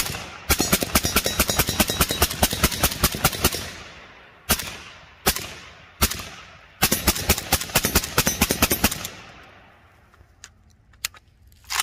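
WBP Jack AK-47 rifle in 7.62×39 with a Wolverine PBS-1 suppressor, firing supersonic Wolf 123-grain full metal jacket rounds: a fast string of shots for about three seconds, a few single shots, then a second quick string of about two seconds. Each suppressed shot is still a sharp crack.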